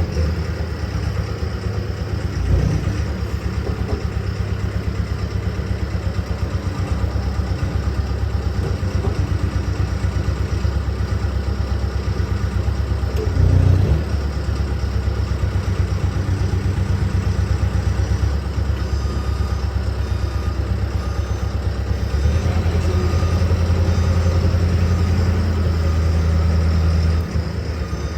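A telehandler's engine running steadily, with a couple of brief knocks along the way. It gets louder and lower about three quarters of the way through, as if put under more load.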